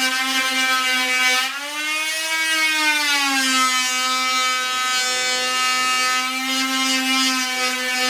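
Electric oscillating multi-tool cutting into a timber door lining, a steady high buzzing whine. Its pitch rises briefly about a second and a half in, then settles back as the blade bites again.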